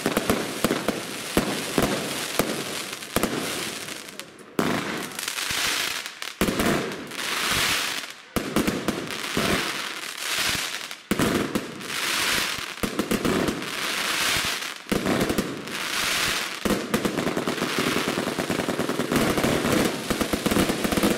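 Rubro Transbomber 144-shot, 25 mm compound firework cake firing: a quick run of shots at first, then repeated waves of crackling, each a second or two long, as the crackling stars burst. Near the end comes a dense, unbroken stretch of shots and crackle.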